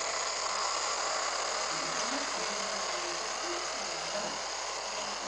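Trix HO-scale model electric locomotive hauling LSM ICR coaches past, a steady whir of its small motor and wheels running along the track.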